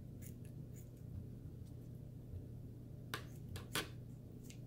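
Kitchen scissors snipping fat off raw chicken leg quarters: a few faint cuts, then several sharper snips about three seconds in.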